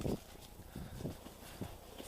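Footsteps in snow, soft low thuds about every half second.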